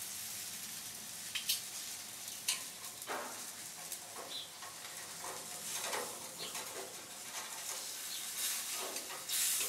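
Food sizzling on a gas grill, with metal tongs clicking and scraping against the grill grate now and then as the pieces are turned.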